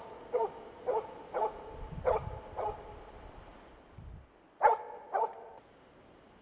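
A Jämtland spitz moose dog barking at a moose it is holding at bay. The barks come in quick succession, about twice a second, then pause for about two seconds before two more.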